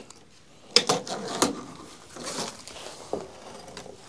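Handling noises: a few sharp knocks and clicks with some rustling in between, as a coffee mug is reached for and picked up off a wooden window ledge.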